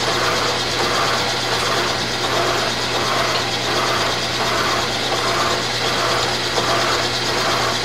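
Milling machine running a form cutter through a shaft of tough chrome hydraulic rod during a forming cut: a steady motor hum with a whirring cutting sound that swells about twice a second.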